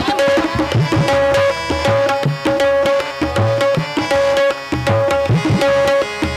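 Instrumental interlude of a devotional song: tabla playing a steady rhythm, its bass drum strokes gliding in pitch, under a melody instrument holding repeated sustained notes.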